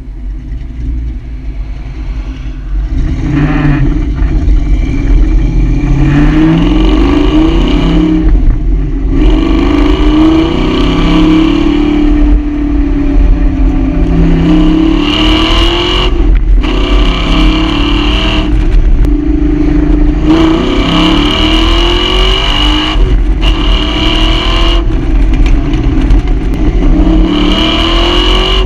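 A V8 car exhaust revving hard again and again. The pitch climbs, then falls or cuts off briefly before it climbs again, many times over.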